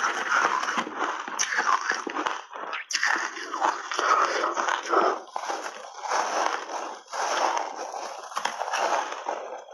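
Close-miked chewing and crunching of ice chunks coated in milk powder: a dense, continuous, irregular crackle of ice breaking between the teeth.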